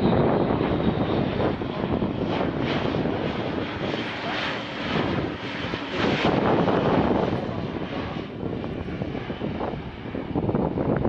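Airbus A400M military transport flying past, its four TP400 turboprop engines and eight-bladed propellers making a heavy, steady drone. The sound swells and eases as the aircraft passes and turns.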